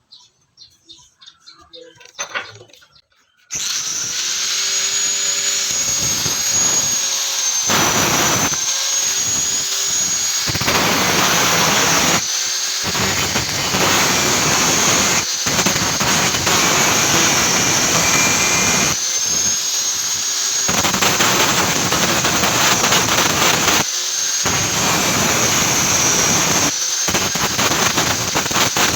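Angle grinder grinding steel: a steady high whine over harsh grinding noise, starting about three and a half seconds in after a few faint taps, with several brief breaks.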